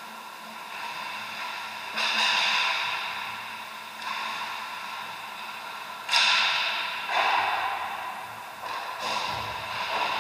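Ice hockey play in an echoing indoor rink: several sudden scrapes and knocks from skates, sticks and puck, four or so, each ringing on for a second or more over a steady background hum.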